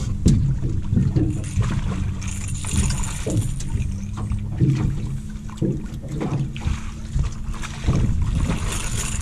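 Wind buffeting the microphone and choppy water against an aluminum boat hull, over a steady low hum, with scattered knocks and rustles as the anglers move about the deck.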